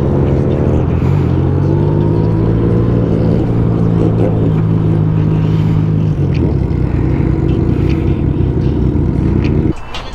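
Motorcycle engine running steadily under way, its note holding and then shifting pitch as the throttle changes. Near the end the engine sound drops away sharply for about a second, as when the throttle is closed for a gear change.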